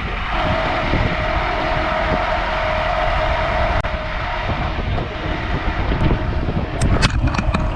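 Rollback tow truck running with a steady whine from its hydraulics, under heavy wind buffeting the microphone. Several sharp clicks come near the end.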